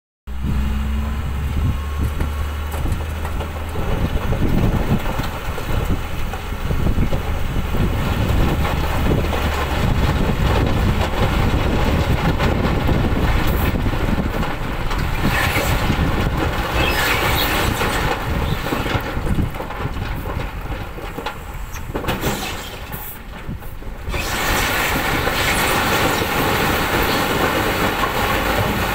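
Hino dump truck's diesel engine running as the hydraulic hoist raises the tipper bed, with a load of blasted macadam stone sliding and tumbling out of the back in a continuous rough rumble. The rumble briefly drops about two-thirds of the way through, then picks up again.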